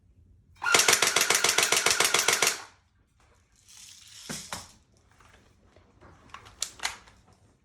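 Airsoft gun firing a rapid automatic burst, about ten shots a second for roughly two seconds, followed later by a few single sharp clicks.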